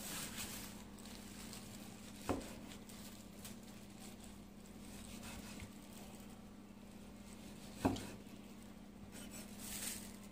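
A cleaver knocking twice on a wooden chopping board as it slices through basa fillet, the knocks about five and a half seconds apart, over a faint steady hum.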